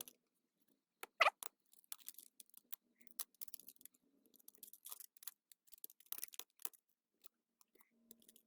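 Faint, irregular clicks and light scraping as the Nokia 2730 phone's small parts and motherboard are handled and pressed back into the housing, with one sharper click about a second in.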